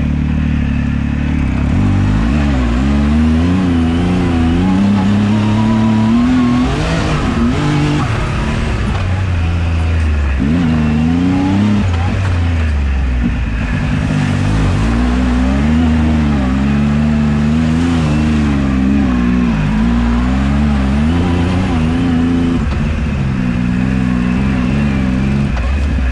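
Turbocharged Yamaha YXZ1000R side-by-side's three-cylinder engine under hard throttle, its pitch repeatedly climbing and dropping as it accelerates and backs off. About halfway through, water splashes up as it drives through a puddle.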